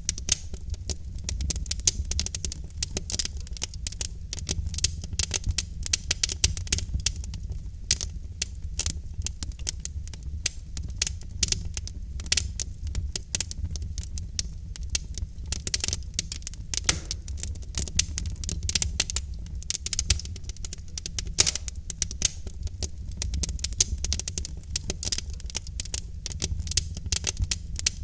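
Logs burning in a fireplace, crackling and popping irregularly and continuously over a steady low rumble of the flames.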